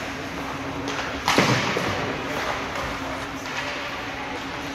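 Ice hockey game sounds in an arena: a steady background hum and one sharp bang about a second in, from play on the ice such as a puck or player hitting the boards.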